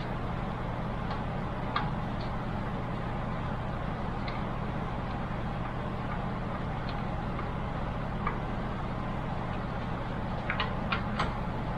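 Small clicks and taps of screws and parts being handled while fitting an all-in-one water cooler into a PC case, a few scattered and a quick run of them near the end, over a steady low hum.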